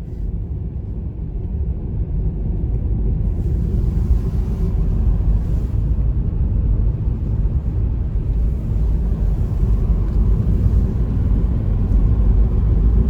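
Low, steady rumble of a car's road and engine noise heard from inside the moving car, growing slowly louder.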